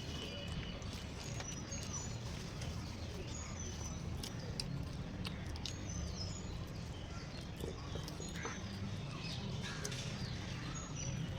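Small birds chirping and calling, with short high chirps scattered throughout over a steady low hum.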